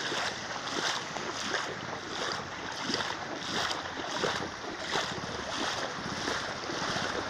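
Floodwater splashing and sloshing in an even rhythm of about two splashes a second, like someone wading through water.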